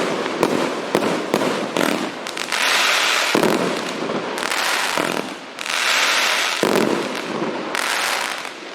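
Multi-shot consumer fireworks cake (171 shots, 1.2-inch calibre) firing: a quick run of sharp shots, then four spells of dense hissing crackle about a second each, easing off near the end.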